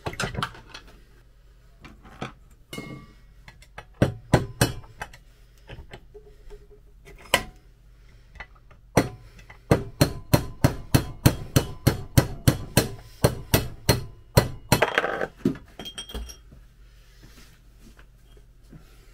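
Hammer striking the metal wiper spindle held in a steel bench vise, tapping its centre shaft out: a few scattered blows, then a quick even run of about three strikes a second from about nine to fourteen seconds in, followed by a short burst of handling noise.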